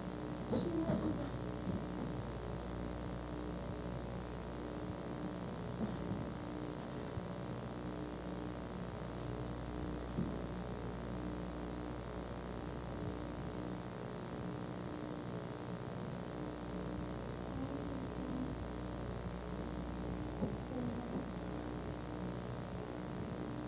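Steady electrical mains hum, a buzzy stack of steady tones, on a 1970s videotape soundtrack. A few faint, brief voice-like sounds come about a second in and again near the end.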